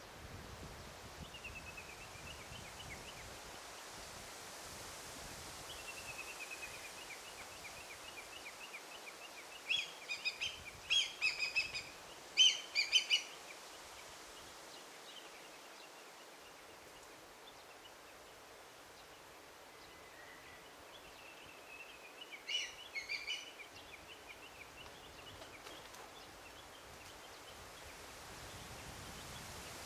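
Wild birds calling in a daytime forest over a soft steady hiss of ambient noise. Faint trilled series of short high notes are followed by a loud cluster of harsh calls about ten seconds in, and a shorter cluster past twenty seconds.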